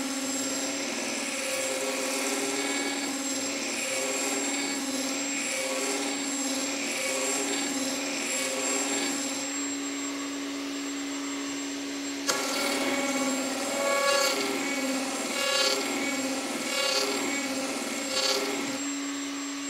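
Table-mounted router running at speed with a round-over bit, cutting the curved edges of small spalted beech boards. Its steady whine dips and swells in pitch as the bit bites into the wood.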